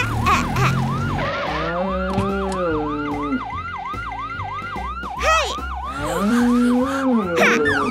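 Cartoon ambulance siren yelping, a quick rise-and-fall sweep repeating about three times a second, over background music with a steady low beat. Two long, low held calls sound over it, one about two seconds in and one near the end.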